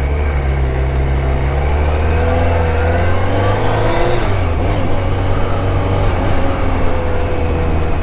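BMW K1200RS's inline-four engine pulling away and accelerating, its pitch climbing over the first few seconds, then dipping about four seconds in before running on steadily.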